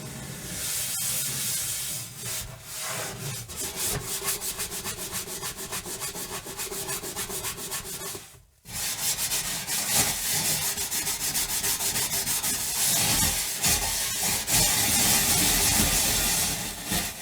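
Scrubbing an oven: rapid back-and-forth scrubbing strokes, with a brief break about halfway through before the scrubbing resumes a little louder.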